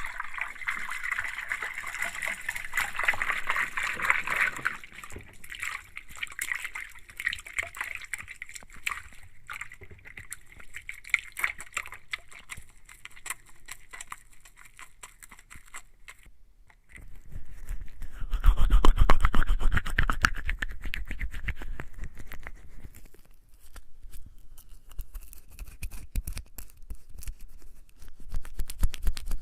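Wet, soapy hands being rubbed together to work up a lather, in dense quick rubbing strokes. The sound stops briefly a little past the middle, then a louder, fuller stretch of rubbing follows before it settles back to quieter lathering.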